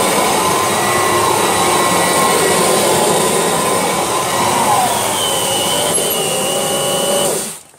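Kirby Legend II upright vacuum running at full power, its motor and brush roll giving a loud, steady whine. About five seconds in the pitch drops and a second, higher whine appears as the rug is drawn up under the nozzle. It is switched off near the end and winds down.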